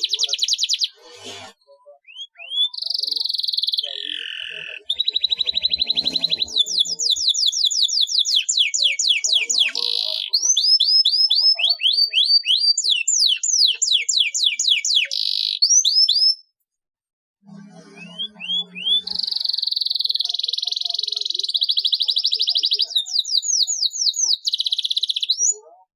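Domestic canary singing vigorously: long, very fast rolling trills alternating with runs of repeated sweeping notes, with a brief pause about two-thirds of the way through.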